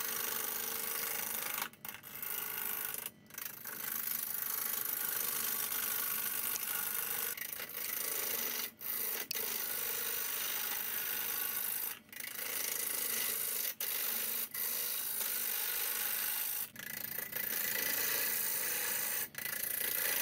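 Turning tool cutting into a spinning, out-of-balance maple blank on a wood lathe: a steady rough scraping hiss of wood being roughed out, broken by several brief gaps where the tool comes off the wood.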